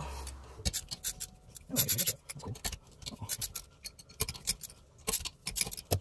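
Ratchet wrench clicking in short, irregular runs as the 10 mm bolts holding the stock manual shifter are loosened, with light metal clatter.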